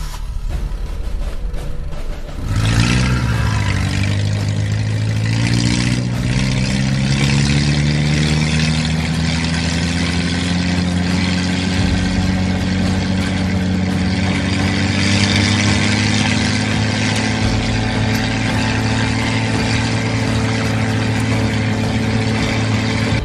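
A vehicle engine running: about two and a half seconds in it comes up loud, dips briefly, then holds a steady drone whose pitch climbs slowly as if gradually accelerating.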